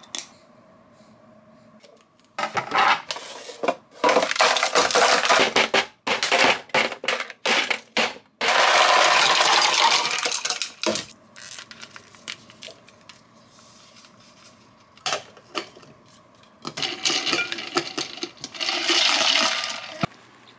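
Ice cubes tipped from a bag into a stainless-steel tumbler, clattering in a run of short bursts and then one longer continuous pour. After a lull, another rushing pour comes near the end.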